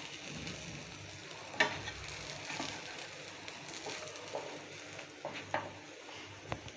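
Potato snack pieces shallow-frying in oil on a hot tawa over low heat: a steady soft sizzle, with a sharp click about a second and a half in and a few lighter clicks near the end, as the pieces are turned.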